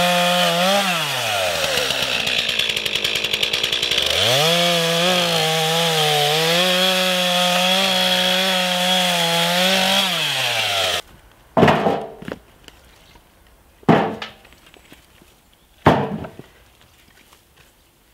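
Stihl MS 231 C two-stroke chainsaw, with a freshly sharpened .325 chain, cutting through logs at full throttle. It drops toward idle about a second in, revs back up around four seconds, then falls off and stops about two-thirds of the way through. Three separate loud thuds follow, about two seconds apart.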